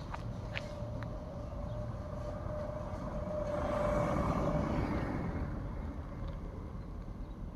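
A passing engine with a steady whine, growing louder to a peak about four seconds in and then fading.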